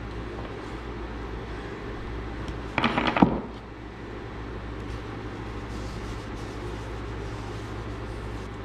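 Steady low background hum in a workshop, with a brief clatter of small parts handled on the workbench about three seconds in.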